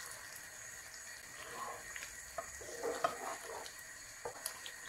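Cornflour slurry poured into a pan of simmering vegetables in stock, then a wooden spatula stirring them, with light sizzling and a few soft knocks and scrapes against the pan.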